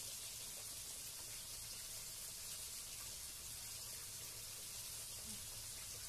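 Pieces of salem fish frying in reused oil in a wok: a steady sizzle.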